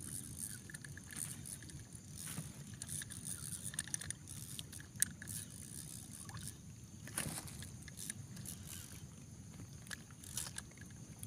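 Faint low water sloshing and lapping, with a few soft clicks and knocks scattered through.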